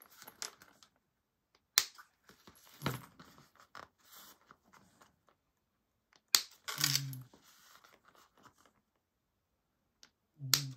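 Small spring-loaded thread snips cutting into the bag's fabric and vinyl: three sharp snips a few seconds apart, with soft handling rustle between them. The cuts are notches that mark the centers of the gusset.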